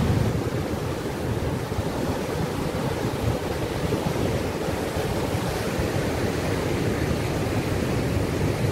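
Heavy surf of a rough sea swell breaking and churning white over rocks below, a continuous steady rush, with wind buffeting the microphone.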